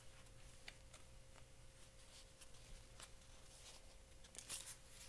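Near silence with faint rustles and light clicks from paper being handled, a little louder about four and a half seconds in, over a faint steady hum.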